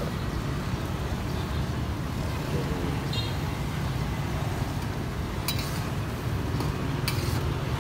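Steady low rumble of street traffic around a steaming wok of seblak on a gas stove, with a few sharp clinks of the metal ladle against the wok in the last couple of seconds.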